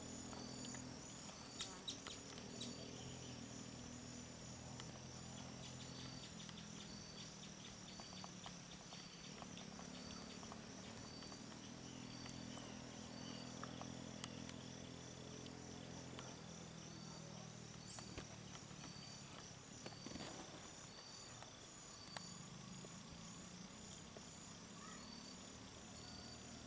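Faint outdoor ambience of insects chirping: a short high chirp repeating about once a second over a continuous, faster-pulsing high trill, with a low steady hum underneath.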